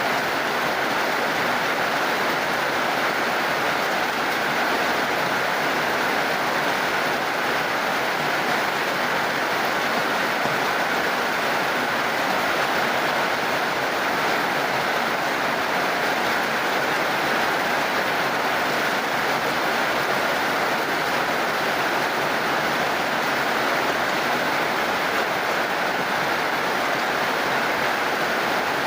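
Heavy rain falling, a steady, even hiss with no breaks or separate drops standing out.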